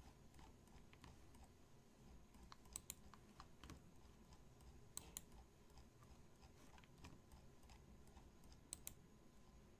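Faint, scattered computer keyboard clicks over near-silent room tone, with a sharper pair of clicks about three, five and nine seconds in.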